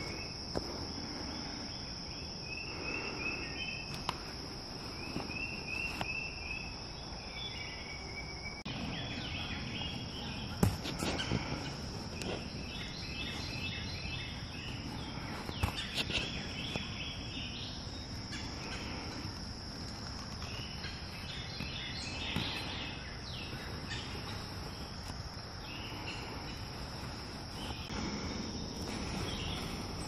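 Woodland ambience: a steady, high-pitched insect drone, with birds singing short repeated phrases on and off and a few faint clicks.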